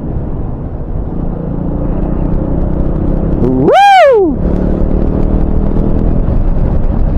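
Motorcycle running at speed with wind noise on the microphone, a steady low rumble. About four seconds in, a single loud whoop from the rider, rising and then falling in pitch.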